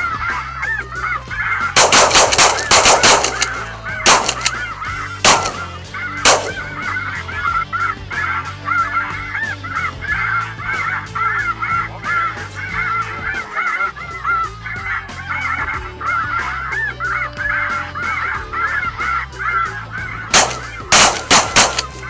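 A big flock of light geese calling continuously overhead, with shotgun shots cutting through: a quick volley of several shots about two seconds in, three more single shots over the next few seconds, and another volley near the end.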